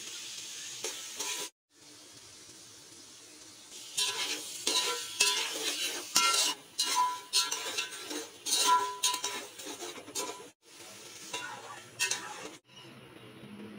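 Beef sizzling in a metal pot while a metal fork and spatula stir it, scraping and clinking against the pot in quick irregular strokes, with water poured in; the sound breaks off abruptly a few times.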